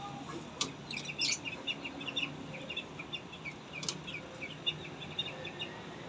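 Small caged parrots chattering with a steady stream of short, rapid high chirps, broken by a few sharp clicks.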